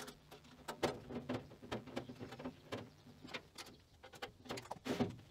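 Scattered light clicks and taps of a screwdriver working the handle bolts and wood screws on a steel chip tray's front panel, over a faint steady hum.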